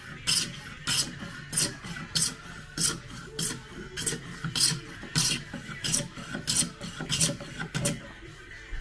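Hand saw cutting through a block of Huon Pine: steady back-and-forth strokes, about one and a half a second.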